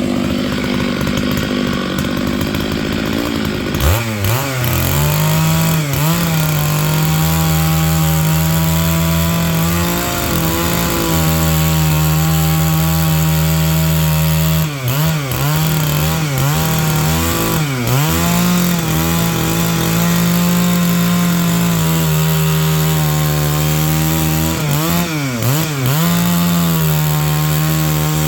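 Stihl MS660 two-stroke chainsaw at full throttle, cutting into a pine log from about four seconds in. The engine note drops under load and dips briefly several times as the saw bogs in the cut.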